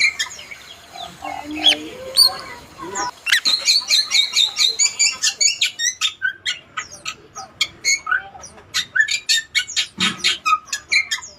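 Bali myna calling: a fast stream of short high chirps, whistles and chattering notes, sparse for the first few seconds, then dense and almost continuous.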